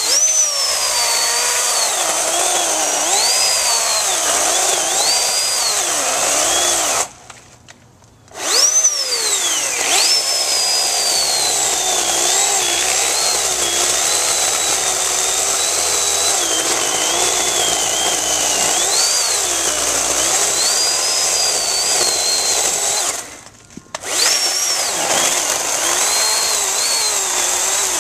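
Oregon PowerNow 40-volt battery chainsaw cutting into a small tree trunk. Its electric motor whines high, the pitch dipping and recovering as the chain bites into the wood. The saw is stopped briefly twice, about seven and twenty-three seconds in, then runs up again.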